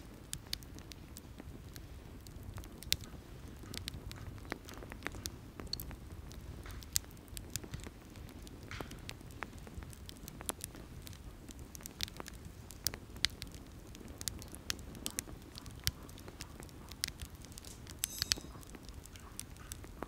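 Campfire crackling: irregular sharp pops and snaps over a low, steady rumble.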